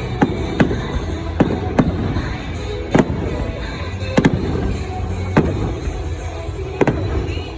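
Aerial fireworks shells bursting: about ten sharp bangs, roughly one a second with two close together near the end, over steady background music.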